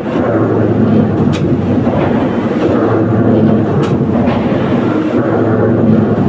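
Stamping-press factory machinery running: a steady, loud mechanical noise over a constant low hum, with a few faint clicks.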